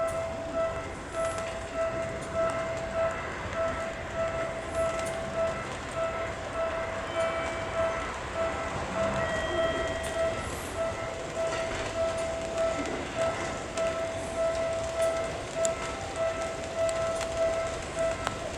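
Seibu 2000 series electric train running along the track, over a warning bell that rings over and over at about two strokes a second.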